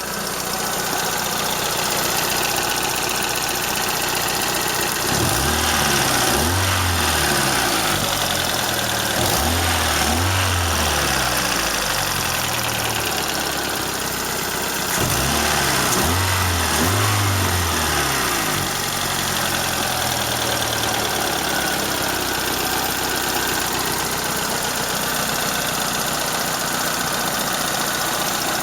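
Toyota 4A-FE four-cylinder engine idling, revved up and let fall back twice, about five and fifteen seconds in. There is a tapping knock that the owner can't place, either a valve tapping or the shafts rattling, along with a slight exhaust leak at the flex pipe.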